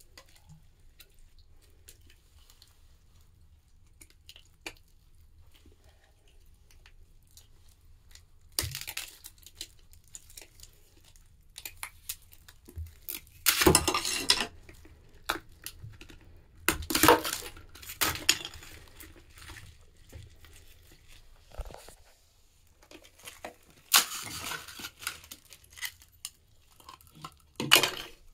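Plastic crinkling and rustling as a textured silicone mold and plastic container are peeled off a frozen ice lantern on bubble wrap. Faint handling noise at first, then irregular loud bursts of crackle from about eight seconds in.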